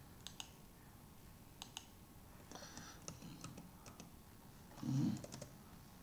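Faint computer keyboard and mouse clicks: a couple of single clicks early on, then a quicker run of keystrokes around the middle. About five seconds in, a short low voice sound, louder than the clicks.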